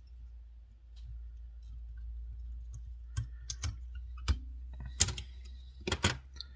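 Several sharp clicks and taps from fly-tying tools being handled, starting about three seconds in, over a faint low hum.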